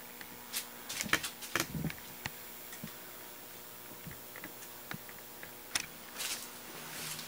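Quiet room tone with a faint steady hum, broken by a few light clicks and rustles, the clearest about a second in and again near the end.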